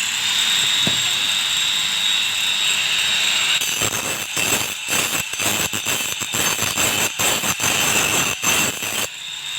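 Hand-held angle grinder running at speed with a steady high whine. From about three and a half seconds in it grinds against a grass cutter's metal blade in short, rapid, repeated passes, sharpening the blade. Near the end it spins free again.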